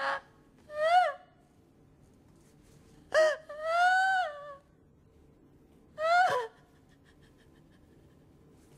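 A woman screaming in anguish: a string of short, high-pitched screams a second or two apart, one held longer near the middle and the last one sliding down in pitch.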